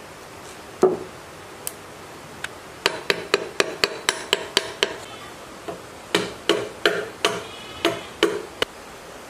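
Hammer tapping a round metal part down into the bore of a cast-iron machine housing as it is reassembled. One blow comes about a second in, then a quick run of about nine lighter taps at roughly four a second, then slower, louder ringing taps near the end.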